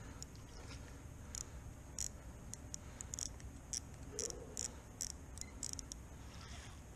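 Faint, irregular light ticking from a baitcasting fishing reel as a striped bass is fought on the line, over a low steady hiss.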